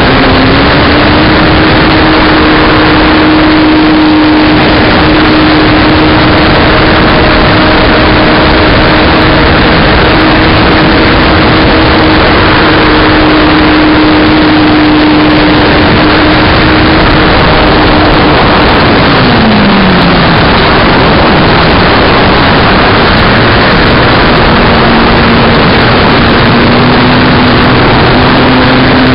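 A model aircraft's motor and propeller drone as one steady tone under heavy wind rush on the onboard microphone. The pitch steps up just after the start and holds. About two-thirds through it slides down and fades as the motor slows, then returns at a lower pitch near the end.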